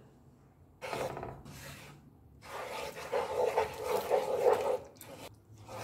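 Wooden spatula scraping and stirring in a non-stick pan, working dry milk powder into milk and melted ghee. It starts about a second in with a short stroke, then a longer run of stirring.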